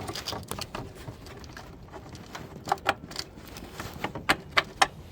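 Plastic electrical connectors being unclipped from a pickup's corner light: a string of sharp plastic clicks and small knocks, coming in clusters in the middle and near the end.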